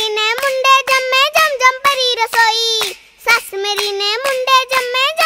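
A young girl singing Punjabi boliyan in a high voice, with held, bending notes and a short break about three seconds in.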